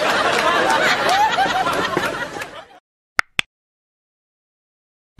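A woman laughing heartily in short cackles, fading out just under three seconds in. Then two quick clicks close together, the click sound effect of a subscribe-button animation.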